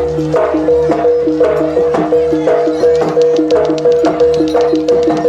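Javanese jaranan accompaniment music: two pitched notes alternating in a fast, even pattern over low drum strokes and sharp percussive clicks.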